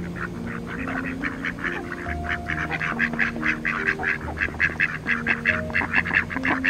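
Mallard ducks quacking in a quick run of short quacks, about four or five a second, growing louder toward the end, over background music with long held notes.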